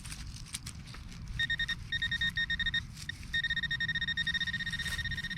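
Garrett pinpointer beeping rapidly as it is held over metal in a freshly dug hole. The pulsed high tone starts about a second and a half in and stops briefly twice. A low rumble of wind or handling runs underneath.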